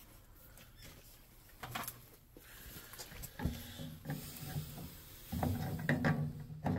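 Tongue-and-groove pliers clicking and scraping on a brass fitting as a copper gas line's nut is tightened onto a water heater's gas control valve. A few scattered light clicks, growing busier near the end.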